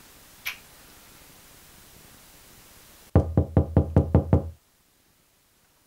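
Quick knocking on a closed interior door, about eight raps in a second and a half, starting about three seconds in and stopping abruptly.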